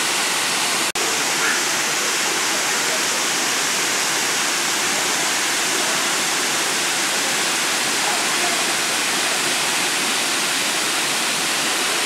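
Waterfall pouring over a rock ledge into a pool below: a steady, unbroken rush of falling water, with a momentary dropout about a second in.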